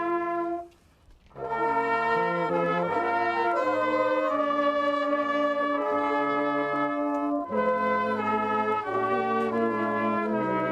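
Brass band playing slow, held chords of a hymn-like tune, with a short pause between phrases about a second in.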